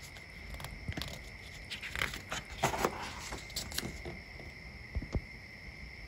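A picture book's page being turned by hand: paper rustling with a few soft clicks and scrapes over a couple of seconds, over a faint steady high-pitched tone.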